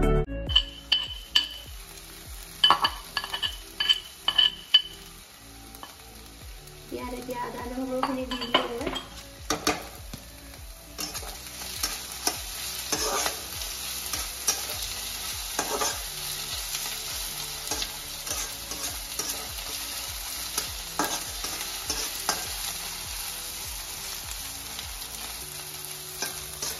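Sliced onions and chillies frying in oil in a wok, sizzling, while a metal spatula stirs them and scrapes and taps against the pan. The spatula taps are sharpest in the first few seconds, and the sizzle grows louder and steadier about eleven seconds in.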